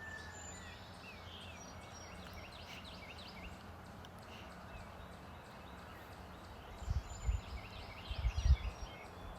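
Several songbirds calling faintly, a mix of short chirps and whistles, over a steady outdoor hiss. About seven seconds in, a few low thumps and rumbles on the microphone.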